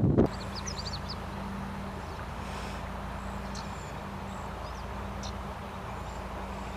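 Birds give short, high chirps now and then over a steady low hum and a soft background wash.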